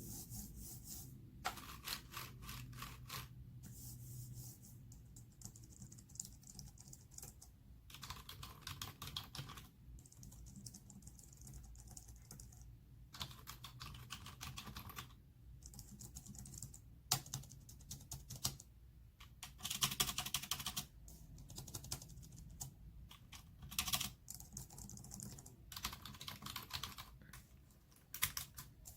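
Typing on a Logitech MX Keys, a flat, low-profile non-mechanical keyboard: soft, tappy keystrokes with minimal click, in runs of a second or few with short pauses between.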